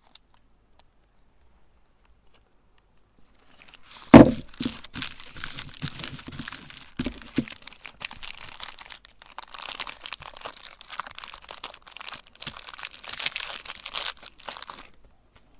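A meat grinder grinding a bar of soap: a continuous crunching and crackling as the soap is crushed, starting a few seconds in, with a loud knock at the start and another a few seconds later.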